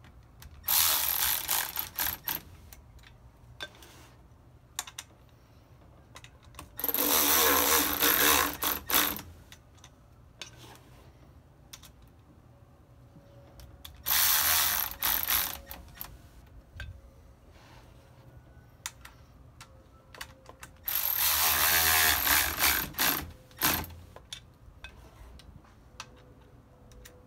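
Cordless electric ratchet running in four short bursts of about two seconds each, spinning the brake rotor ring's mounting bolts down until snug.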